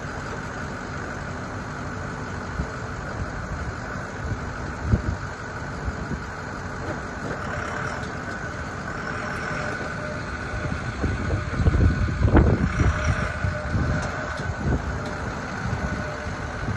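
A Ford F-250 Super Duty pickup's engine runs steadily as the truck creeps forward, getting louder about eleven seconds in.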